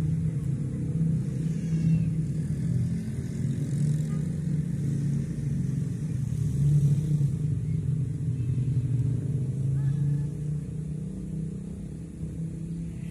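A bee buzzing: a steady low drone that wavers in loudness.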